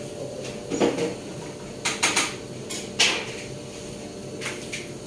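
Short metallic knocks and clatters of cooking pots and lids being handled on an electric stovetop, about seven in all with the loudest about three seconds in, over a steady hum.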